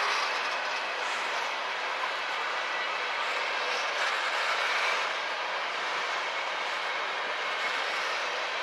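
Freight train cars rolling past on the rails: a steady, unbroken noise of wheels on track.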